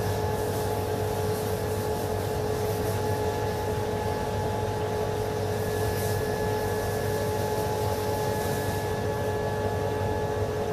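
Hot-water pressure washer running steadily: a motor and pump drone with several held tones, with the hiss of the spray over it. It cuts off abruptly at the very end.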